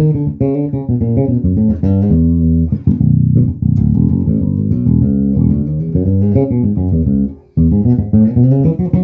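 Carvin Icon 5 five-string electric bass played fingerstyle through a Tecamp Puma bass amp: a continuous run of plucked notes, with a short break about seven and a half seconds in.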